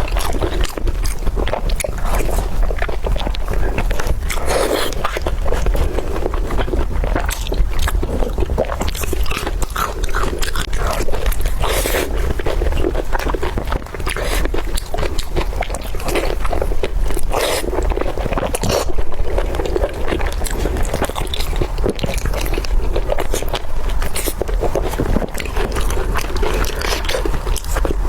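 Close-miked mukbang eating: a person biting and chewing food with continuous wet mouth clicks and smacks, over a steady low hum.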